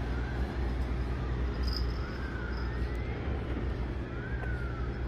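Steady low mechanical rumble like idling engines, with faint rising-and-falling whistles about every two seconds.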